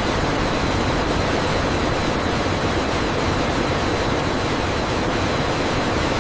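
Steady, loud rushing noise of factory ambience, even throughout, with no distinct strokes or tones.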